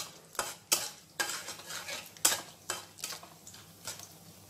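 A spoon stirring mustard seeds, urad dal, chana dal and cumin as they fry in a little hot oil in a pan for a tempering. Irregular sharp clicks and scrapes come two or three times a second over a faint sizzle.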